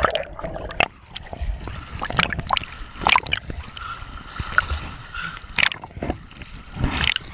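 River water splashing around a kayak: a steady rush broken by irregular sharp splashes about once a second.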